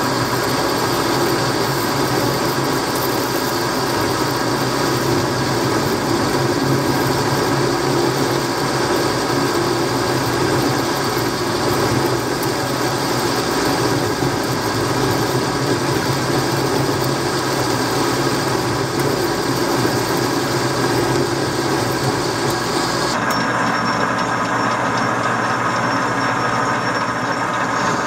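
Metal lathe running steadily, turning a test cut in steel with a chip-breaker tool bit. Near the end the sound changes abruptly and the higher part drops away.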